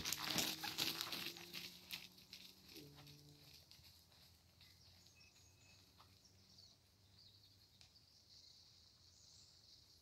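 A horse passing close by on a rubber-chip arena surface, its hoofbeats and tack clattering loudly for about the first two seconds, then fading to faint as it moves away. Faint high bird chirping follows.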